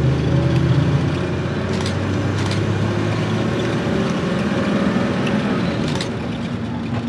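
Bus engine running and road noise heard from inside the moving bus, a low engine hum under a steady rush. There are a few sharp rattles or knocks about two, two and a half, and six seconds in.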